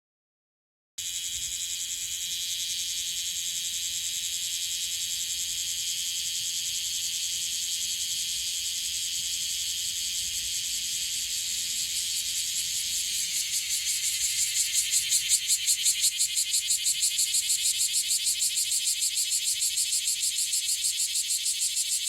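Bear cicada (Cryptotympana facialis) singing: a loud, high, steady buzz that about two thirds of the way through turns into a fast, even pulsing of about five beats a second and grows a little louder.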